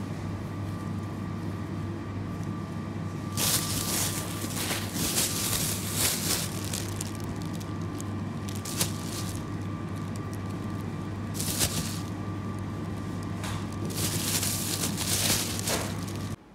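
Thin plastic produce bag crinkling and rustling in repeated bursts as tomatoes are picked into it, over a steady background hum.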